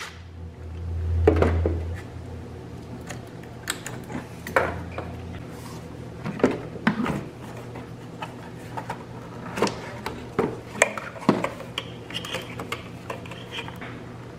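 Hand-tool and plastic handling sounds under a car's hood: a low hum in the first couple of seconds while a ratchet works the battery's negative terminal nut, then scattered clicks, knocks and clatter as the plastic air box lid is unclipped and lifted off.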